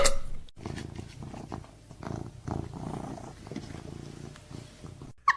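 Domestic cat purring steadily, a low rhythmic rumble that rises and falls with each breath. It opens with a brief loud noise left over from the moment before.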